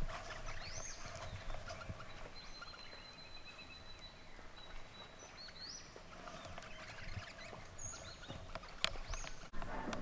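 Birds calling: a few short whistled notes that rise and fall, and a thin steady whistle held for a couple of seconds. A sharp click comes near the end.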